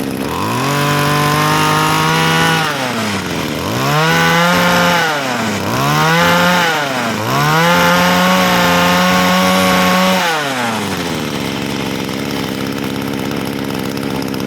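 Two-stroke brush cutter with a 34 mm bore idling, then revved hard four times, each rev held briefly and dropping back to idle; it runs like a chainsaw, strong and quick to pick up.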